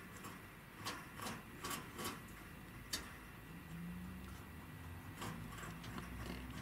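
Small sharp clicks of metal grooming tools working a matted patch of chinchilla fur: a handful of clicks in the first three seconds, then a faint low hum.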